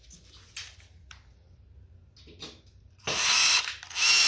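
A few light handling clicks, then a power drill/driver whirring loudly in two short runs from about three seconds in, driving a screw tight.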